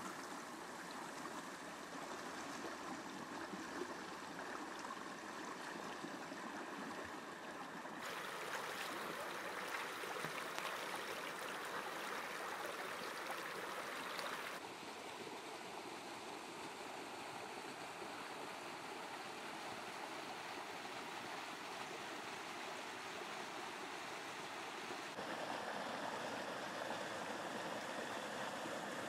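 Shallow rocky stream rushing and burbling over stones. The water sound changes abruptly three times, and is loudest near the end, where the water pours over a small cascade.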